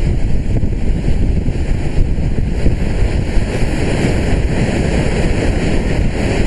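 Gale-force wind buffeting the microphone with a heavy low rumble, over the rush of storm surf breaking along the sea wall.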